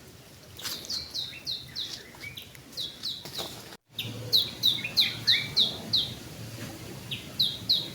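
A tiny bird singing loudly: phrases of quick, high, down-slurred notes, about three or four a second, repeated with short pauses between phrases.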